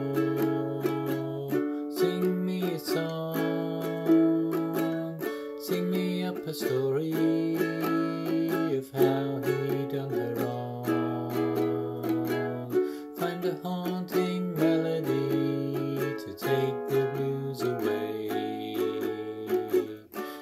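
A man singing with a strummed ukulele, the capo on its neck, in a steady rhythm of chords under long held vocal notes.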